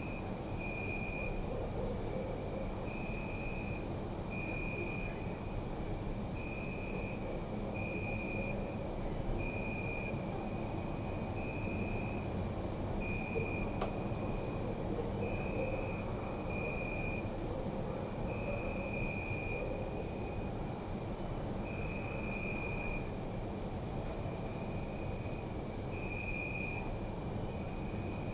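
Crickets chirping at night: a high, fast trill with brief gaps, and a lower chirp repeating about once a second. A low, steady background rumble sits underneath.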